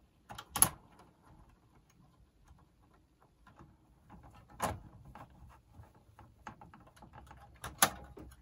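Plastic dial guide and dial-scale parts of a radio cassette recorder being fitted by hand: light scraping and small taps, with three sharp clicks, a little under a second in, about halfway through and near the end.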